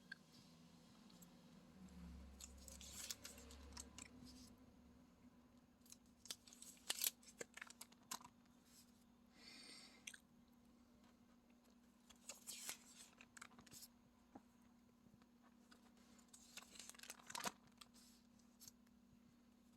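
Faint paper and plastic rustling and crinkling with scattered clicks, from album pages of old letters and covers being handled and turned, over a faint steady hum.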